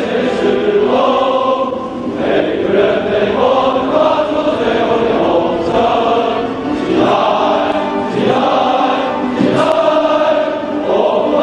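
A choir singing with music, long held notes moving from one chord to the next.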